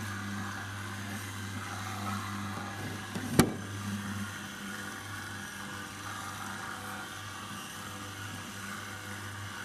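Small boilie dough mixer running steadily, its motor humming as the mixing fingers turn the dough in a stainless steel pot. One sharp knock about a third of the way in.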